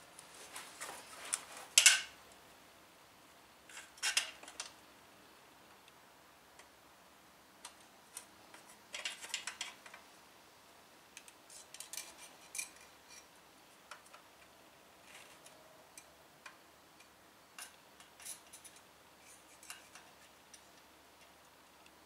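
Scattered small metallic clicks, clinks and scrapes as a steel straight edge and digital calipers are handled and set against a T56 transmission's bell housing and slave cylinder, the loudest clink about two seconds in.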